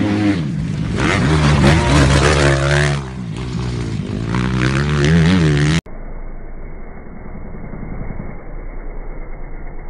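Motocross dirt bike engine revving up and down, its pitch rising and falling. About six seconds in it cuts to a duller, quieter recording of a dirt bike engine running at low revs with an even pulsing throb.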